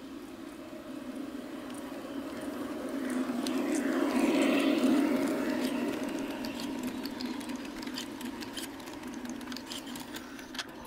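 G-scale garden-railway freight train running past close by: the motor hum and rolling noise swell to a peak about four seconds in and then fade as the wagons go by, with a run of rapid clicks from the wheels on the track.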